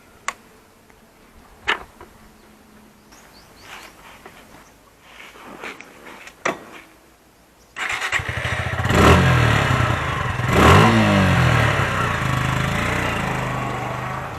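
A few sharp clicks and knocks, then about eight seconds in a motorcycle engine starts, is revved twice, and settles to a steady run.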